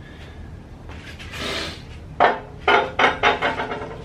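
Handling noise, then a clatter of hard objects knocking together: several sharp knocks in quick succession in the second half, some with a brief ring.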